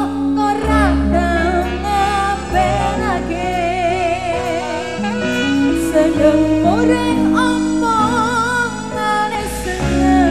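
Live reggae-style band music: a wavering lead melody with strong vibrato over a steady bass line.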